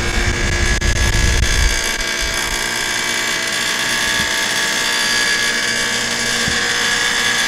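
Mr Heater Big Maxx 80,000 BTU unit heater running with a steady buzz, which the owner puts down to the igniter buzzing the whole time the burner runs.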